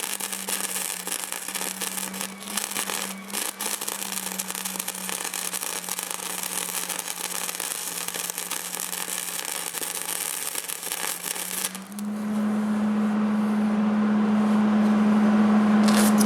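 Hobart welder arc crackling and sizzling for about twelve seconds as a stud is welded to a steel mower deck, then cutting off, leaving a steady hum that sits slightly lower in pitch while the arc runs.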